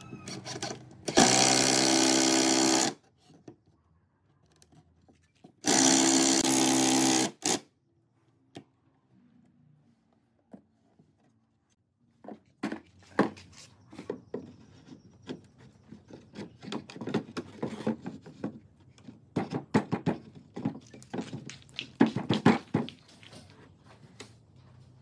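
Cordless drill driving screws in two runs of about two seconds each, a steady motor whine that stops sharply each time. After a few quiet seconds comes a long stretch of light knocks and taps as wooden chair parts are handled and fitted together.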